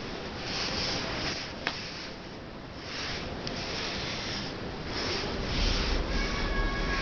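Rustling and handling noise as a black domestic cat rubs against the camera, a hand and denim-clad legs, with a single click early on; near the end the cat starts a long meow.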